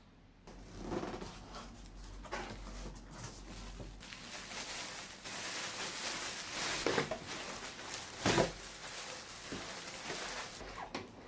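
Handling noises: irregular rubbing and rustling with scattered light knocks, two louder knocks about seven and eight seconds in.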